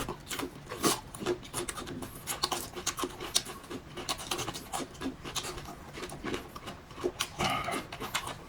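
Close-miked eating sounds: irregular chewing, lip smacks and mouth clicks, with a brief vocal hum or slurp near the end.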